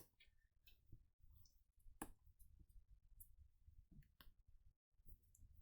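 Faint scattered clicks and taps of small craft embellishment dots being picked off their sheet and placed on a paper card, the sharpest click about two seconds in.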